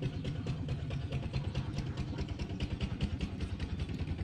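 Rabbits chewing watermelon close up: quick crunching clicks, several a second, over a steady low motor hum.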